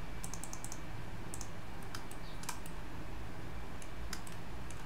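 Irregular clicks from a computer mouse and keyboard, in small clusters, over a steady low background hum.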